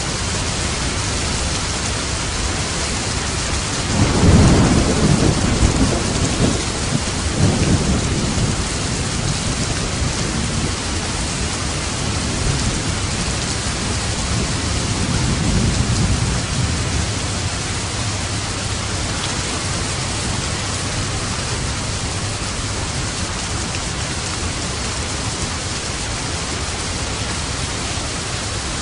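Steady rain falling, with rolling thunder rumbling in about four seconds in and a second, softer roll near the middle.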